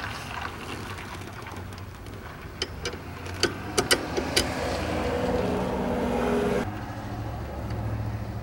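A steady low vehicle engine hum, with a handful of sharp clicks of loose bolts and washers being handled a few seconds in.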